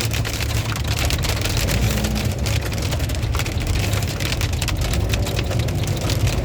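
Heavy hail pelting down: a dense, unbroken clatter of countless ice stones striking, over a steady low rumble.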